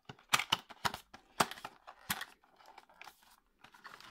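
Paperboard retail box being opened by hand, its end flap pulled and bent, giving a series of sharp crackles and snaps of card, most of them in the first two seconds.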